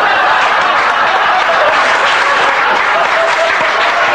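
Audience applauding a joke's punchline, a dense, steady clatter of many hands.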